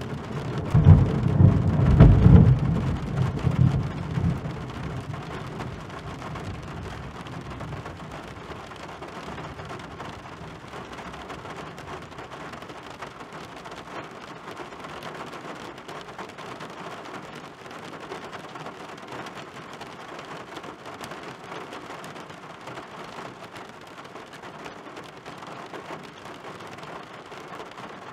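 Heavy rain falling on a car windshield, with a loud rumble of thunder in the first few seconds that dies away, leaving the rain steady.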